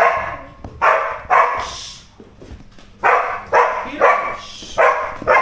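A dog barking repeatedly, about eight loud barks, several coming in quick pairs.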